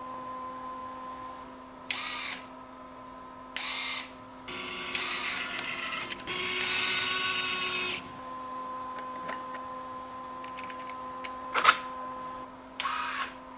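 Micro linear actuators driving a 3D-printed DRS wing linkage: five runs of electric motor whine, the two longest back to back in the middle and lasting a second and a half or more each, with a sharp click shortly before the last one. A faint steady hum runs underneath.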